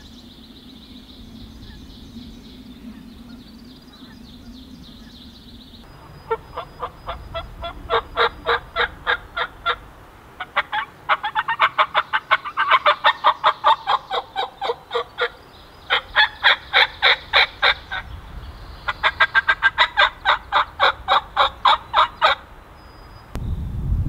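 Hen-turkey yelping: four loud runs of rapid, evenly spaced yelps, about five a second, starting about six seconds in. Before that there is only a faint steady high-pitched hum.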